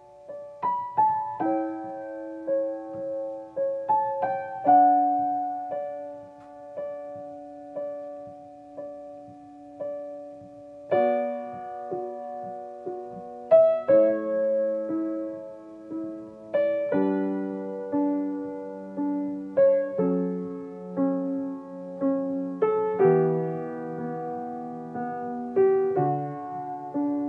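Background music: slow, gentle solo piano melody with notes struck one after another, thickening into fuller chords in the second half.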